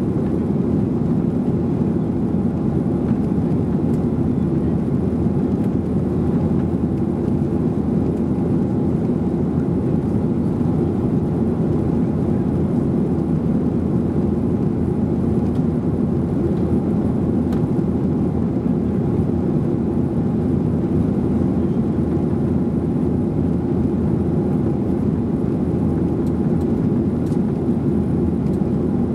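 Steady cabin noise inside a Boeing 737-800 climbing after takeoff: its CFM56-7B turbofan engines at climb power mixed with air rushing past the fuselage, a constant low rumble that does not change.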